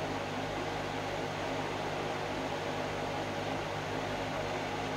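Steady hiss of a gas stove burner flame heating a coconut shell of Maggi noodles at the boil, over a low steady hum.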